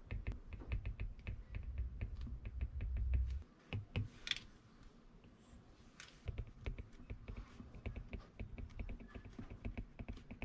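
Apple Pencil tip tapping and sliding on the glass of an iPad while handwriting notes: a quick, irregular run of small hard clicks, with a low hum underneath that drops away for a few seconds in the middle.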